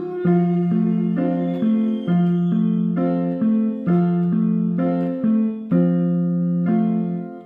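Electronic keyboard playing sustained chords in F, a new chord struck about twice a second over a repeated low bass note, with no singing; it fades near the end.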